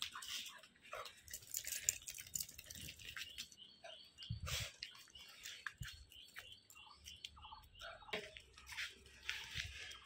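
Faint, scattered clicks and taps of a wet Siberian husky's claws and leash on stone paving as it walks, with small birds chirping briefly now and then in the background.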